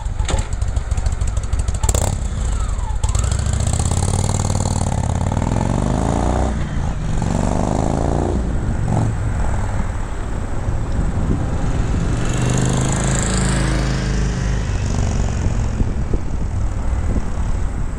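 Indian Thunder Stroke 111 air-cooled V-twin motorcycle engine running through an aftermarket TAB Performance exhaust baffle. It idles between several throttle blips that rise and fall in pitch, around four, eight and thirteen seconds in.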